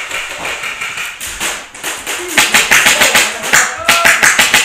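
Airsoft gunfire: rapid runs of sharp clicks and pops, about ten a second, in two bursts starting a little before halfway in.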